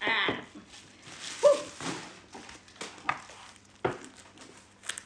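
Plastic bubble-wrap packaging rustling and crinkling as it is handled, with scattered sharp clicks and crackles. A short exclamation, "ah", is the loudest sound, about a second and a half in.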